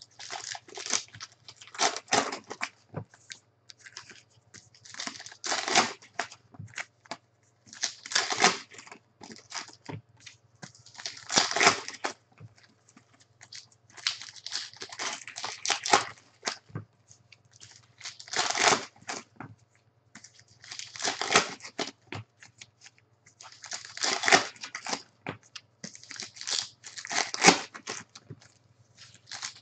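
Foil trading-card pack wrappers crinkling and tearing as packs are opened by hand, in bursts every two to three seconds.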